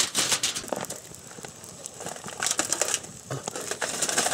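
Aluminium foil crinkling in bursts of crackles as cooked fish is pulled apart on it by hand.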